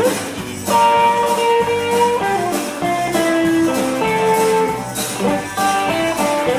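Live rock and roll band playing, with a guitar carrying held melody notes over a steady drum beat of about two hits a second.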